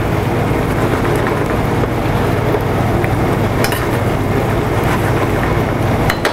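Steady low roar of a commercial kitchen's gas range and ventilation, with two light clinks of a spatula against a stainless steel pan, about halfway through and near the end.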